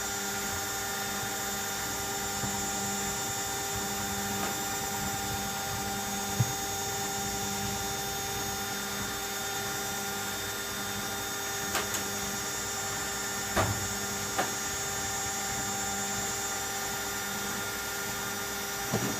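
Candy Aquamatic 1000T compact washing machine spinning fast with an empty drum: a steady motor whine made of several tones, with a few brief clicks or knocks partway through.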